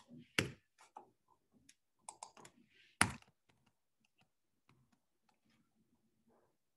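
Typing on a computer keyboard: irregular keystrokes, two louder ones about half a second and three seconds in, then lighter, sparser taps.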